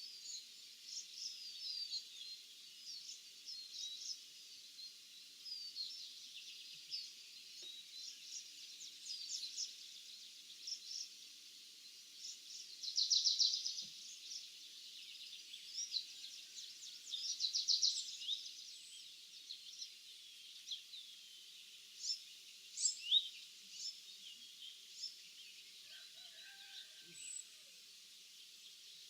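Several small birds singing and chirping over a steady high hiss, with two louder rapid trills about 13 and 17 seconds in.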